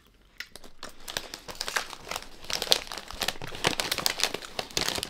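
Snack bag of Tuc Baked Bites crackers crinkling and crackling as it is handled, starting about half a second in and growing busier.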